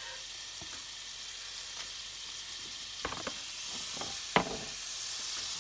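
Butter sizzling in a hot skillet, a steady hiss. A few light knocks come about halfway through, and sharper ones near the end.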